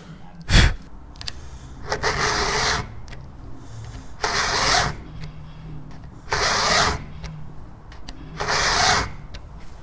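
Round file rasping through the cutter tooth of a round-ground saw chain in four sharpening strokes, each under a second and about two seconds apart. A sharp click comes about half a second in.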